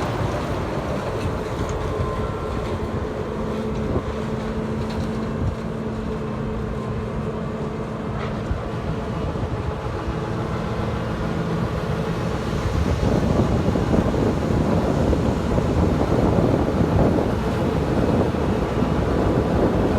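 Farm machinery engine running steadily with a droning hum, growing louder and rougher about two-thirds of the way in, with some wind buffeting the microphone.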